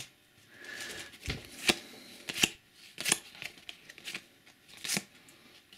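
Trading cards being handled: a stack of Panini Adrenalyn XL cards flicked through and laid down, giving about five sharp snaps and taps with soft card rustling between them.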